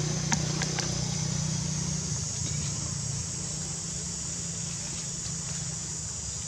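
A steady low drone, easing off a little after a couple of seconds, under a constant high insect buzz, with a few faint clicks near the start.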